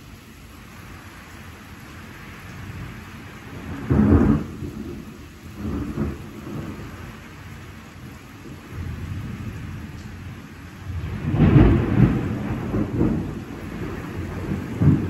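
Thunderstorm: steady rain throughout, with thunder rumbling in peals. One comes about four seconds in and a smaller one near six seconds. The loudest and longest rolls from about eleven to thirteen seconds, and another swells near the end.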